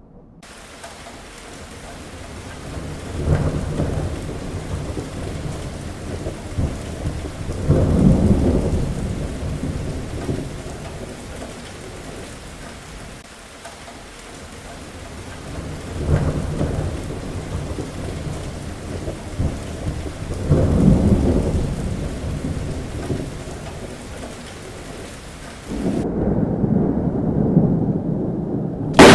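Heavy thunderstorm: steady heavy rain with thunder rumbling four times, each rumble swelling and fading over a few seconds. Near the end there is a louder stretch of rumbling, then a sharp, loud thunderclap.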